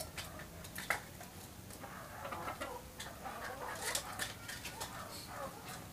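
Domestic chickens clucking faintly, with a few light clicks and one sharper click about a second in.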